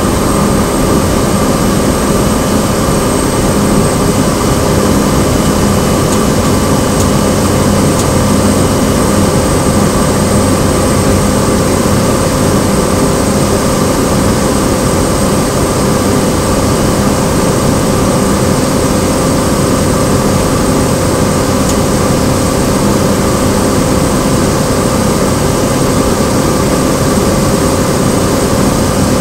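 Cessna 208 Grand Caravan's Pratt & Whitney PT6A turboprop engine and propeller running steadily, heard inside the cabin: a loud, even drone with several steady hums and a high-pitched whine.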